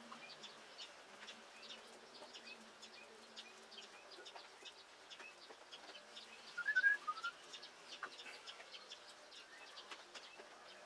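Faint outdoor birdsong: many short, high chirps throughout, with a louder quick run of half a dozen chirps about two-thirds of the way through. A low hum fades out in the first few seconds.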